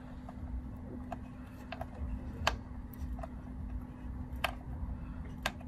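Scattered small clicks and ticks of a screwdriver working the mounting screws of a Darkflash Tracer DT240 liquid cooler's pump block onto its CPU bracket, about six ticks at uneven intervals over a steady low hum.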